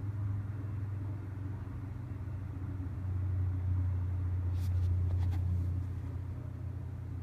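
Low, steady rumble of a jet airliner climbing away after takeoff, swelling about three seconds in and easing off near the end. A few faint clicks come through about five seconds in.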